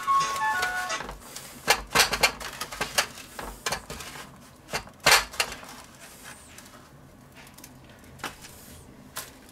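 Hands working breaded meat in breadcrumbs in a stainless steel tray: scattered knocks and scrapes against the metal, the loudest about two and five seconds in. A short tune of electronic beeps ends about a second in.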